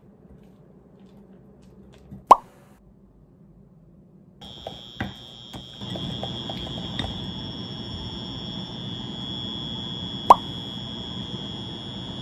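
Wire whisk stirring pancake batter in a glass bowl, with scraping and light clicks. A steady high whine starts about four and a half seconds in, and two short sharp plops stand out, one early and one near the end.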